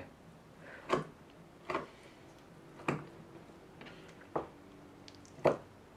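Kitchen knife coming down through raw chicken drumsticks onto a plastic cutting board, five sharp knocks about a second apart while the meat is scored along the bone.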